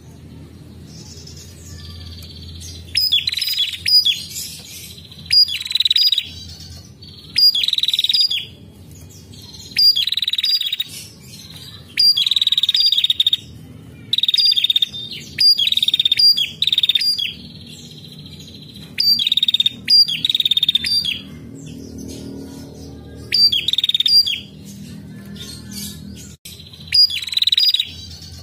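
Female prenjak calling: short, loud, buzzy trilled phrases, each about a second long, repeated every second or two with a few brief pauses.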